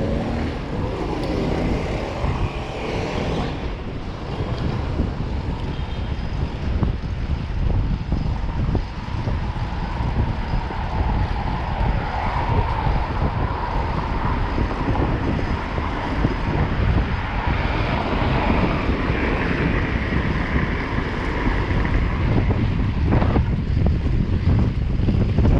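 Wind rumbling on the microphone of a moving bicycle, over the steady noise of city traffic, with a passing vehicle's noise building in the middle.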